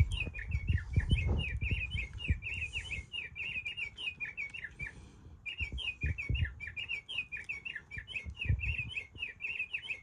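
Singing bird clock playing its recorded house finch song for the 12 o'clock hour: a long run of quick warbled chirps with a short break near the middle. A few low knocks come from the clock being handled.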